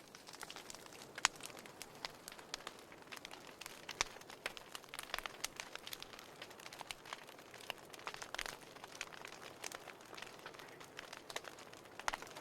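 Wood fire crackling: irregular sharp pops and snaps, some louder than others, over a soft steady hiss.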